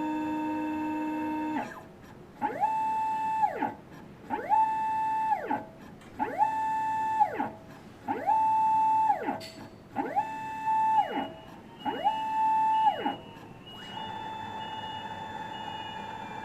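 Motor whine sweeping up in pitch, holding, then sweeping back down, six times about every two seconds, between a steady whine before and after: the strange motor noise of an intermediate stage that does not move.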